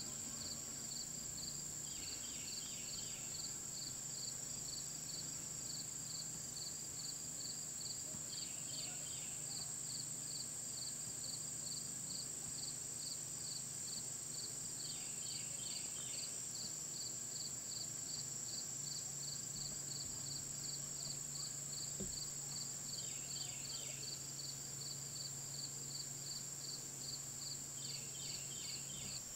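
Outdoor insect chorus: a steady high-pitched drone, with a cricket chirping about twice a second and another insect giving a short burst of pulses every six seconds or so. A faint low hum runs underneath.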